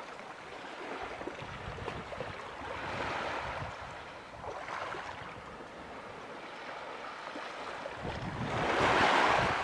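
Small waves washing and lapping in shallow water at the shore, the swish swelling and ebbing several times and loudest near the end.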